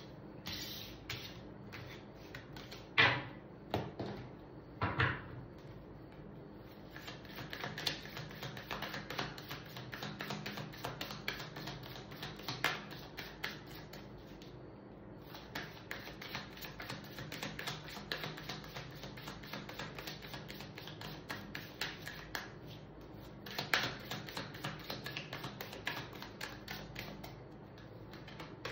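Tarot cards being shuffled by hand. A few sharp taps come in the first five seconds, then long runs of rapid card-on-card clicking with a short break in the middle. A low steady hum sits underneath.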